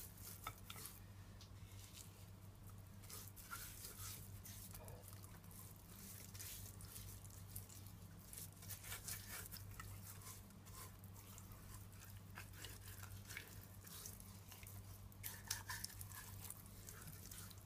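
Faint wet squishing and light clicks of hands rubbing a jerk seasoning paste into whole tilapia in a glass bowl, over a steady low hum.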